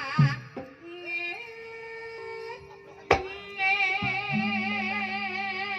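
Javanese gamelan music in the Banyumas ebeg style: held metallophone notes, a sharp drum hit about three seconds in, then a singer's long wavering high note over a low, steady gong tone.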